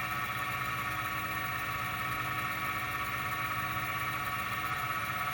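Lathe motor running at a steady speed as it spins an epoxy shift knob for sanding and polishing: a steady whine over a low hum.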